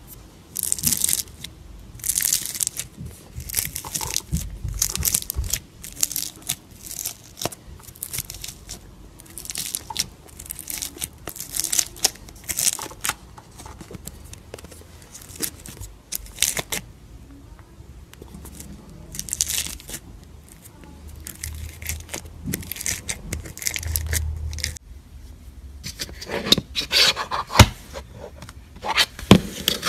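Fingers pressing and squishing slime packed with foam balls in a plastic tub, making irregular bursts of crackling and crunching. Near the end a clearer slime gives a few sharp, louder clicks and pops.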